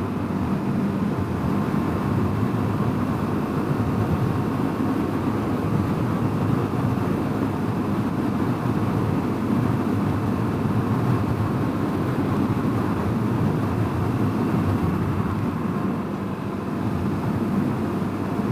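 Honda CRF250L's single-cylinder four-stroke engine running at a steady cruise under wind rush on the microphone, with no gear changes or revving.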